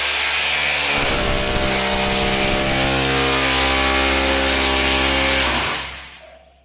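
Electric drill running at full speed with a steady pitch, then winding down and stopping near the end.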